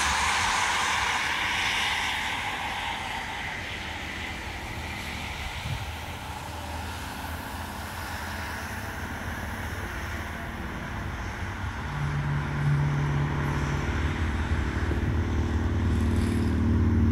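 Road traffic passing on a highway. A vehicle's tyre noise fades away over the first few seconds, then a low engine rumble builds toward the end as another vehicle approaches.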